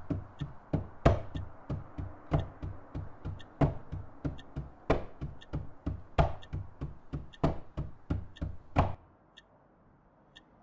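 Steady rhythmic knocking and tapping, a heavier knock about every second and a half with lighter taps between, stopping suddenly near the end. Faint ticking of a wall clock, about once a second, carries on after it.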